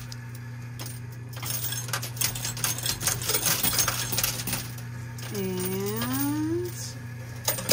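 Coins clinking and clattering in a coin pusher machine as they are shoved along and drop off the shelf, over a steady low machine hum.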